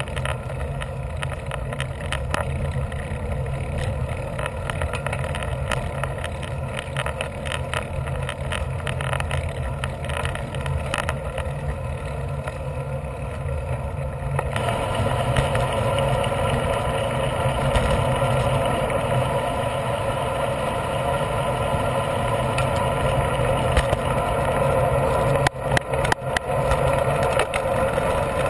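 Steady wind rumble and road noise on an action camera's microphone while riding a road bike. It gets louder and brighter about halfway through, with a few brief dips near the end.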